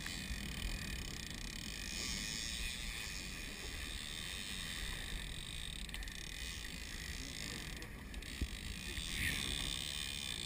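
Evinrude outboard motor running steadily at the stern of a small fishing boat, with water splashing around the hull.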